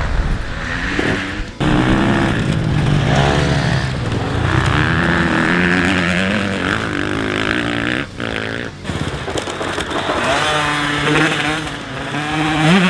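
Grasstrack motorcycle engine revving hard, its pitch rising and falling again and again as the throttle is opened and closed, with brief sharp drops about one and a half seconds in and around eight seconds in.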